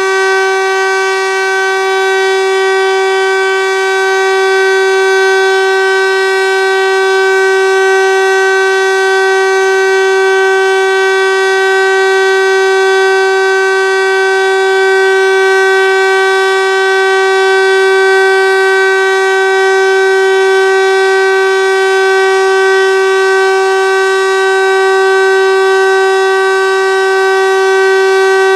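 Landert MSL-3 electromechanical motor siren at full speed, holding one loud, steady, unwavering tone with many overtones. This is a continuous-tone (Dauerton) signal of a civil-defence siren test.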